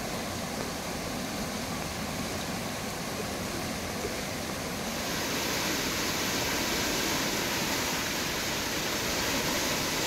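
Muddy floodwater from a hill-torrent flash flood rushing and churning fast, as a steady rushing noise. It grows a little louder and hissier about halfway through.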